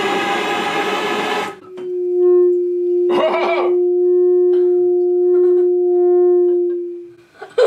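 A gas blowtorch flame burns inside a pipe with a rushing noise for about a second and a half. Once the torch comes away and the pipe is held upright, it sings one steady low tone for about five seconds before fading out: a Rijke tube, where hot air rising through heated wire gauze sets the air column in the pipe vibrating.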